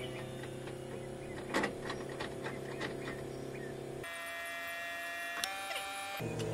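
Electric fuel pump on a Ford 6.9L IDI diesel buzzing steadily with the key on, pushing fuel through the lines to a newly fitted injection pump. About four seconds in, the low hum gives way for about two seconds to a higher steady whine that steps up in pitch, then the low hum returns. A few faint ticks come early on.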